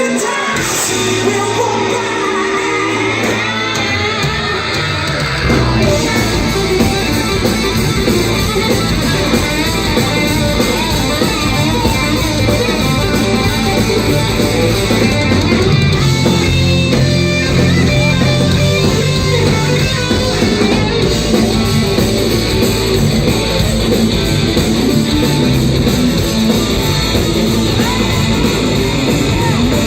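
Live rock band playing loud, guitar-led rock. The band's full low end comes in about five and a half seconds in, and the playing then carries on at full volume.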